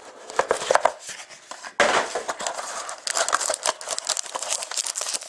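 Handling of a Panini Dominion hockey card box and the paper-wrapped pack inside: a run of taps and scrapes, a sharp knock about two seconds in, then steady rustling crackle of paper and cardboard.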